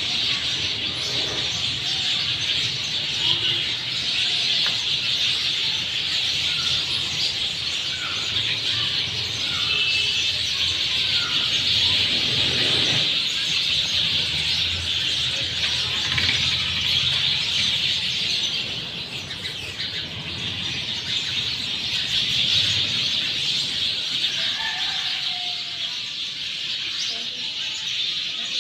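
A dense chorus of many sparrows chirping at once, a continuous chatter, with a few separate calls standing out over it now and then.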